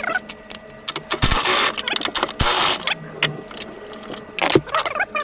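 Hand ratchet and socket clicking in two quick runs, with scattered metal clicks and clanks, as the bolts of the engine mount are worked loose.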